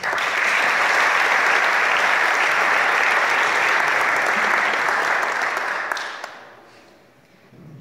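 Audience applauding, a dense steady clapping that fades away about six seconds in.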